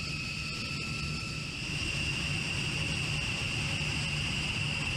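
Jet aircraft engines running: a steady low rumble with a high-pitched turbine whine.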